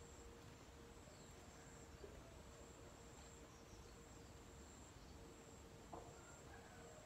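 Near silence in a garden: a faint, steady high-pitched insect trill that breaks off now and then, with two soft clicks about two and six seconds in.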